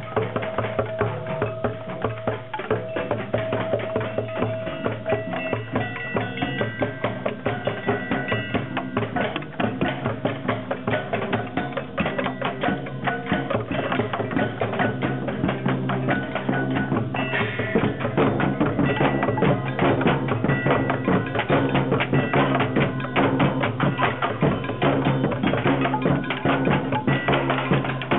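A drumming group playing percussion music: quick, dense hits over held pitched notes, growing louder and fuller about two-thirds of the way through.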